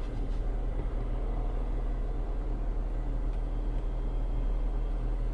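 Steady low hum heard inside the cabin of a parked Jeep Wrangler, its 3.6-litre Pentastar V6 idling.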